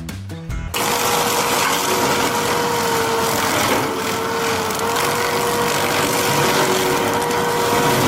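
A small engine cuts in sharply just under a second in and runs at a steady speed, with a constant whine over a rough, even noise.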